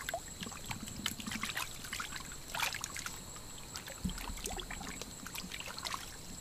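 Hands splashing and sloshing in shallow muddy water, with water trickling and dripping in irregular small splashes.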